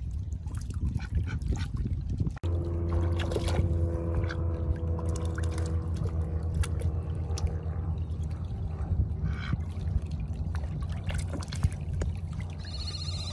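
Small waves lapping and trickling over pebbles at the water's edge, with scattered small clicks of stones. A steady low drone runs underneath, and a short high call comes near the end.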